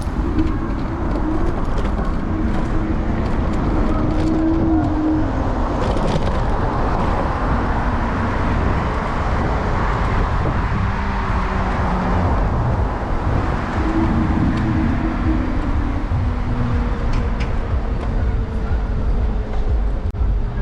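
Riding an electric scooter through city traffic with the microphone on the handlebars: steady wind rumble and road noise, with car traffic passing and a slowly falling engine or motor tone near the end.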